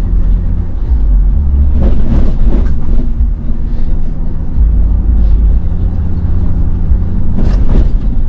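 Vehicle engine and road noise heard from inside the cab while driving, a steady low drone. Brief louder noises come about two seconds in and again near the end.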